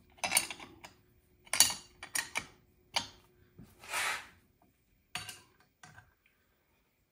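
Several short steel-on-steel clinks and knocks, with a longer scraping rub about four seconds in, as a milling vise and its positioning jig are handled and pressed into place on the mill table.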